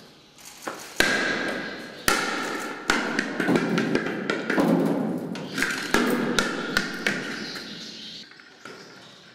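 Steel cage bars and a barred gate rattling and clanking, with many sharp knocks over a harsh scraping noise, starting about a second in and dying away near the end.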